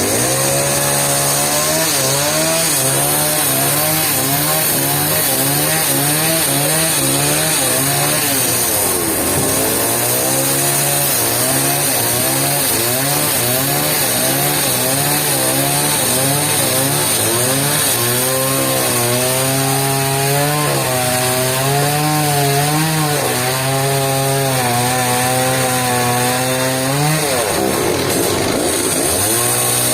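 Chainsaw running under load while cutting wood, its engine pitch wavering up and down as the chain bites. The pitch sags deeply and recovers twice, about nine seconds in and near the end.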